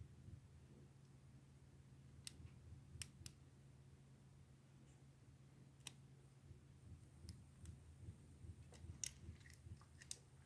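Faint, scattered metallic clicks and ticks of a pick and tension wrench working the pins of a pin tumbler lock. There are a few single clicks at first and a quicker run of them near the end, over a low steady hum.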